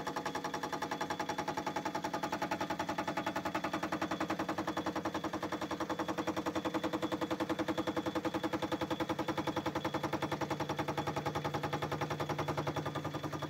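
Parting tool taking an interrupted cut through a cast-iron casting spinning in a metal lathe. It makes a rapid, even clunk-clunk-clunk as the tool meets the uneven cast surface, which tools don't like.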